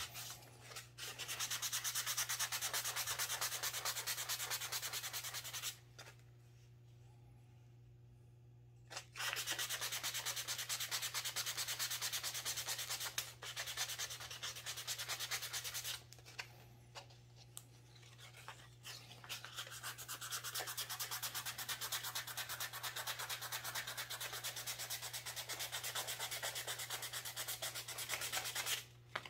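Pine puzzle pieces rubbed back and forth by hand on a flat sheet of 220-grit sandpaper, a fast scratchy rasping in quick strokes, with a pause of about three seconds some six seconds in and a few shorter breaks later.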